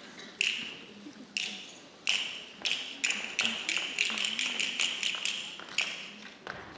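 Castanets playing alone in the ballet accompaniment: single sharp clicks about a second apart at first, quickening to several a second.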